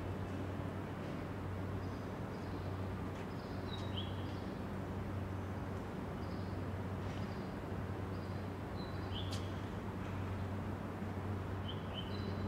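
Steady low hum of background ambience, with short high chirps a handful of times and a few faint sharp taps.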